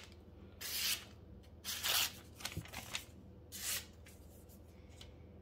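Sharp D2 steel knife blade slicing through a sheet of paper in several short, crisp swishes, with one light click near the middle; the clean cuts show a very sharp edge.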